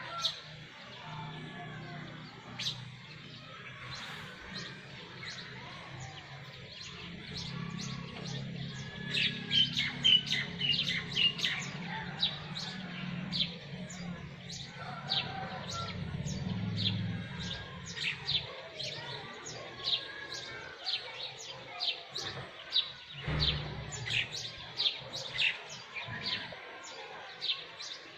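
Sparrows chirping: many short, sharp chirps, several a second, getting busier about a third of the way in. A low hum sits underneath through the middle.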